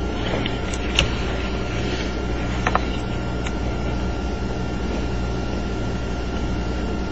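Steady background hum with a low drone, and a few small sharp clicks, one about a second in and a pair near three seconds, from die-cast metal model truck parts being handled and fitted together.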